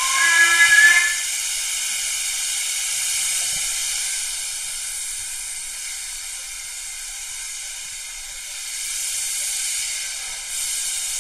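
Steam locomotive hissing steam, a steady, loud hiss that carries on throughout. A brief whistle sounds right at the start.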